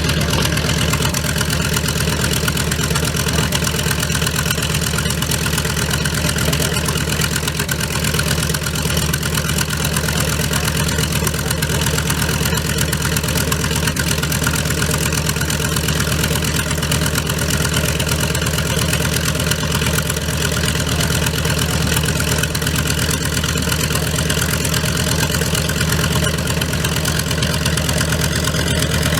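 A piston engine idling steadily at a constant speed, with an even, rapid firing pulse and no revving.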